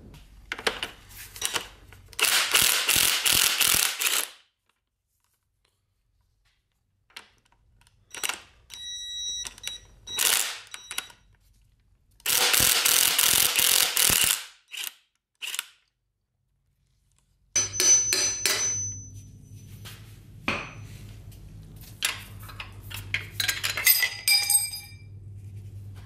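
A socket ratchet clicks in two bursts of about two seconds each as it loosens the connecting-rod cap nuts on a small block Chevy 350, part of pulling the pistons to reach the rod bearings. Light metallic clinks and short ringing pings come from the steel parts being handled.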